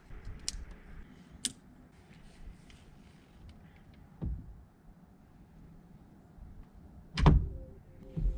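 Scattered light clicks and knocks of parts and tools being handled, with a duller knock about four seconds in and a heavy thump about seven seconds in, the loudest sound.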